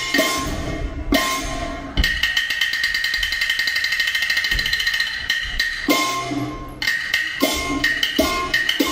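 Chinese opera percussion band playing for a Qin opera martial-arts scene: drum and wooden clapper strikes with a steady ringing tone above them. A fast, even roll runs from about two seconds in until about five seconds, then separate strikes return.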